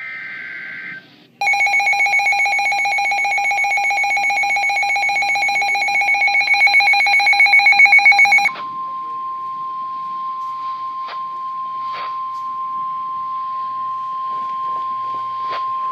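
Emergency alert broadcast tones. It opens with the end of a warbling two-tone digital header burst. Then comes a loud, rapidly pulsing, buzzy alert tone for about seven seconds. At about eight and a half seconds it switches to a single steady tone, the National Weather Service warning alarm, with a few faint clicks.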